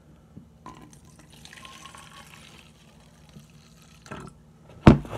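Energy drink poured from a plastic shaker cup into a glass bottle: a soft, steady trickle of liquid filling the bottle for about three seconds. A single sharp knock near the end.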